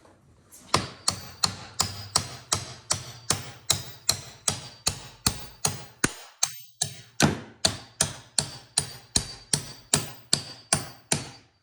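Hammer tapping metal pins back into a Ridgid toolbox's hinge: a steady series of sharp strikes, about three a second, each with a short metallic ring, with a brief pause just past the middle.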